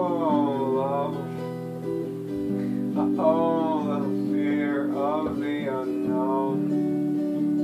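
Electric guitar chords played clean, ringing and held. Above them, a higher melody line slides and wavers in pitch in several short phrases.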